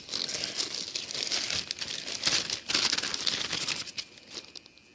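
Packaging crinkling and tearing as it is opened by hand, for about four seconds before it dies away.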